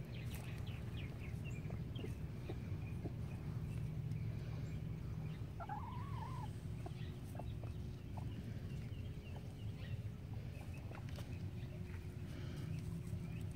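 White-crested Polish bantam hen calling quietly as she moves about the coop, with one clearer call that rises and falls about six seconds in. Scattered light clicks and a steady low hum run underneath.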